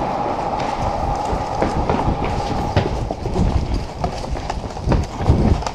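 Busy clatter of indoor airsoft play: scattered sharp clicks of airsoft shots and hits over a steady noisy background, with heavier low thumps of a player moving near the end.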